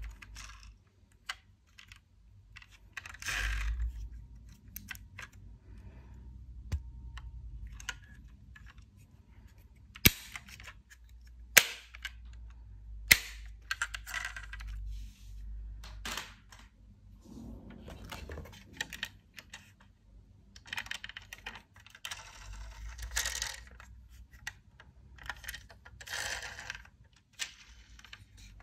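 Small die-cast toy cars clinking and rattling against each other as they are handled in a box, with three sharp clicks between about ten and thirteen seconds in.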